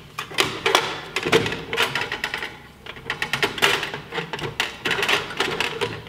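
Electrical wires and plastic push-in connectors being stuffed into a sheet-metal junction box: an irregular run of clicks, taps and scrapes of wire and plastic against the metal.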